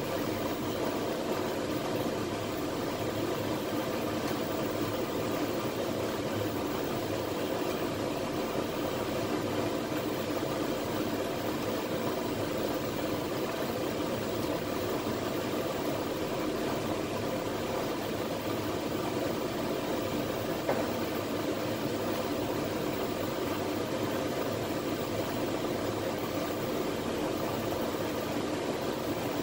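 Steady machine hum with an even hiss, unchanging throughout, with several steady droning tones in it.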